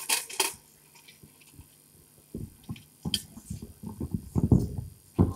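Handling noise on a microphone: a few sharp clicks at the start, then scattered low thumps and rumbles, and a loud click near the end.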